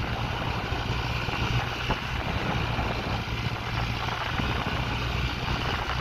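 An engine running steadily with a constant low drone, and wind rushing on the microphone.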